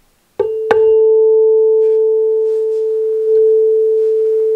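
A 440 Hz tuning fork on a wooden resonator box, struck twice in quick succession with a rubber mallet, then ringing with a steady pure tone; a brief higher ping dies away just after the strikes. It is being excited to set a matching 440 Hz fork resonating in sympathy.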